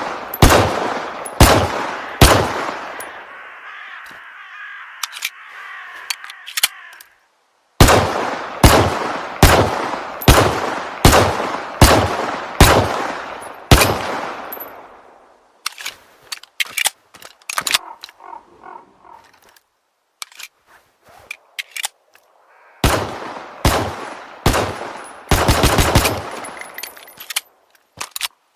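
1911 pistol shots fired in strings: a few shots, a steady run of about nine roughly 0.7 s apart, then after a pause another string ending in quick succession. Fainter small clicks and rattles fill the pause between strings.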